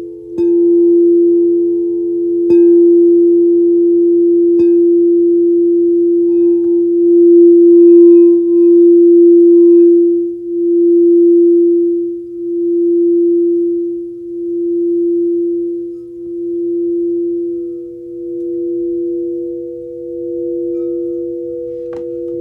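Singing bowl ringing with a steady hum and a higher overtone, struck three times in the first five seconds. From about halfway through, the tone pulses in a slow wah-wah, swelling and fading about every two seconds as it sustains.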